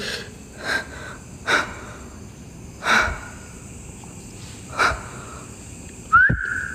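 A man's breathing close to the microphone, short audible breaths every second or two. Near the end, a brief high-pitched tone that slides up and holds, with a low thump.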